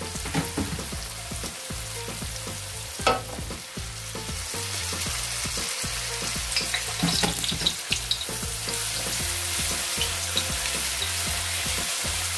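Onions frying in hot oil in a wok, sizzling as chopped tomatoes are added and stirred through with a wooden spatula, with a few knocks of the spatula against the pan. The sizzle grows louder over the second half.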